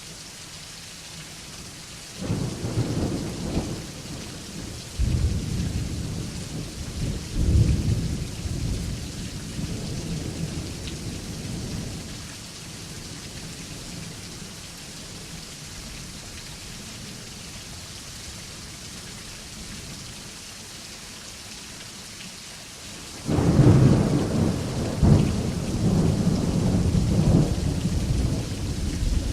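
Steady rain falling with two rolls of thunder: the first breaks about two seconds in and rumbles on for about ten seconds, the second breaks suddenly near the end and is still rolling as it closes.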